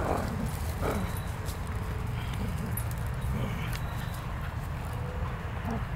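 Dogs playing together, with two short falling-pitch vocalisations near the start and a few fainter ones later, over a steady low rumble.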